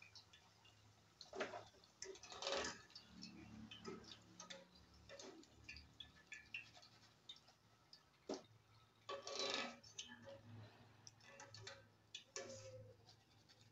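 A metal wire strainer and spoon clicking and scraping against a stainless steel frying pan as fried potato pieces are scooped out of the oil and tipped into a dish: irregular light taps with a few louder scrapes.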